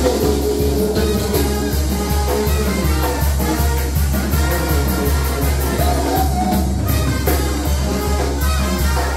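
Mexican banda music: a brass band with a steady tuba bass line and an even percussion beat.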